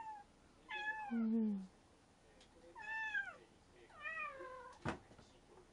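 A cat meowing four times, each meow falling in pitch. A single sharp click comes near the end.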